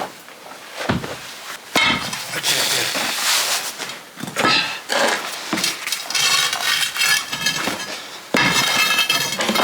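Metal hand tools scraping and knocking against old stone slabs and gritty soil as the slabs are dug out and prised loose, with a sudden bout of harsh scraping near the end.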